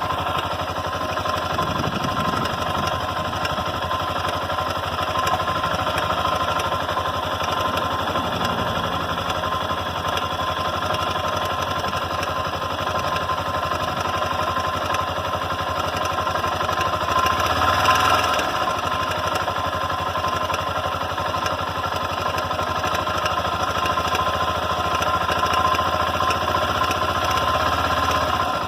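Honda NX Falcon 400i single-cylinder engine idling with a rapid metallic hammering knock, briefly revved about eighteen seconds in. The owner links the noise to the cam chain tensioner.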